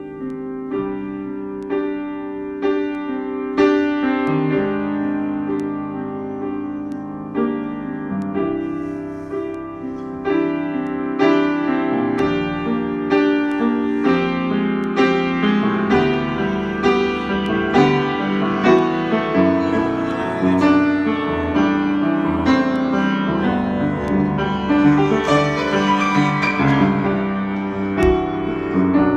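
Improvised piano playing: struck notes and chords that grow louder and busier from about a third of the way in.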